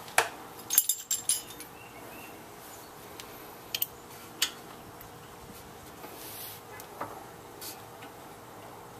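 Light metallic clicks and clinks from hand work on a brake caliper as a greased slide pin is threaded in by hand, a cluster about a second in and single ones scattered after.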